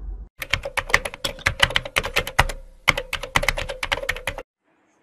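Rapid computer-keyboard typing clicks, about six keystrokes a second, with a short pause midway. They stop shortly before the end. This is a typing sound effect timed to on-screen text being typed out letter by letter.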